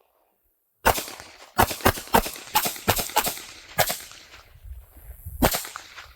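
About ten .380 ACP pistol shots from a Walther CCP and a Springfield 911, fired in quick, uneven succession from about a second in, with the loudest near the end.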